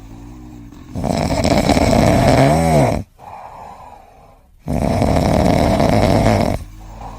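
A sleeping pet snoring: two long, loud snores about three and a half seconds apart, with quieter breathing between. The first snore ends in a brief squeaky rise and fall in pitch.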